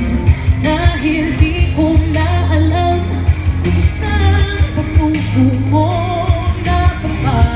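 A female vocalist singing with a live rock band, her melody held over strong bass notes and steady drum hits.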